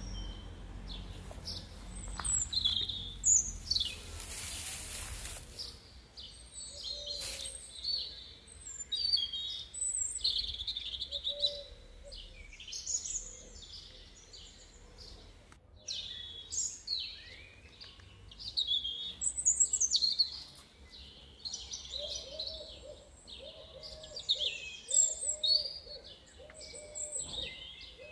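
Small birds chirping and singing on and off, in short, quick phrases. Near the end a lower bird repeats one hooting note over and over, and a brief rush of hiss passes about four seconds in.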